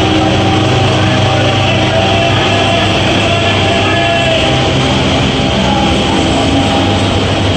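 Music playing, with a passenger train's coaches rolling past as the train pulls out of the platform.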